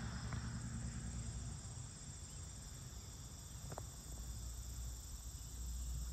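Crickets and other insects chirring steadily over a low, steady rumble, with one faint click a little past the middle.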